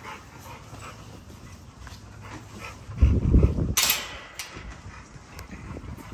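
American bully dogs in kennel runs making dog sounds. A loud rumble and a sharp clatter come about three to four seconds in.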